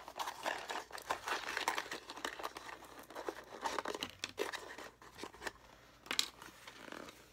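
Crinkling and rustling of a small cardboard box and its packaging being opened and handled by hand, with many short irregular clicks and taps; one sharper click about six seconds in.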